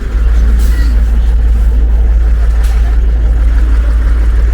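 Loud, steady low rumble of outdoor street noise, with two brief faint hissing flecks about half a second and two and a half seconds in.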